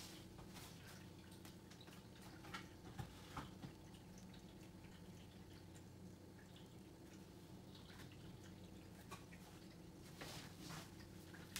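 Faint, scattered drips of Windex glass cleaner falling through a plastic funnel into a bottle, over a steady low hum.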